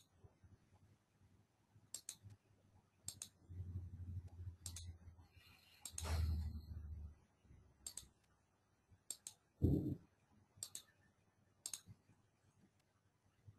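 Faint computer mouse clicks, single and in quick pairs, every second or two. Low rumbles come around a third and a half of the way through, and a dull thump just before ten seconds in.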